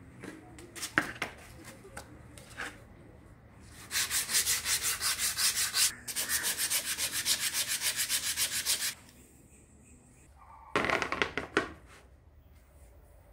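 Edge of a plywood basket rim being sanded by hand with a sanding block: quick back-and-forth scraping strokes, about five a second, in two long runs with a brief break, then a short run near the end. A few light knocks of wood being handled come first.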